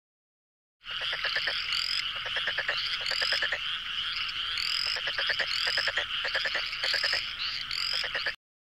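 A chorus of animal calls: rapid trains of clicks overlaid with short rising chirps that recur several times. It starts abruptly about a second in and cuts off just before the end.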